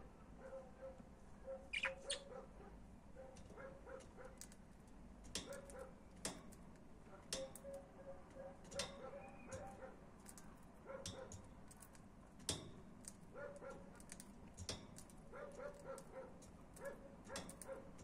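Pet budgerigars chattering quietly: runs of short, soft, repeated notes broken by many sharp chirps and clicks.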